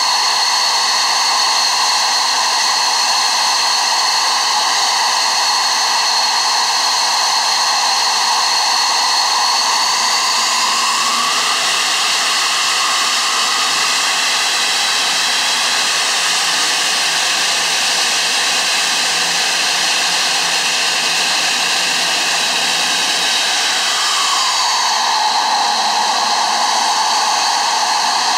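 Mirage 2000D's SNECMA M53 turbofan running on the ground: a loud, steady rush with a high whine. The whine shifts in pitch about ten seconds in and shifts back near the end.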